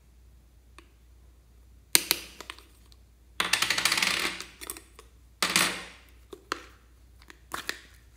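Small plastic slime tub being handled and opened: sharp plastic clicks and knocks, with a rattling scrape lasting about a second and a half as the lid is twisted off.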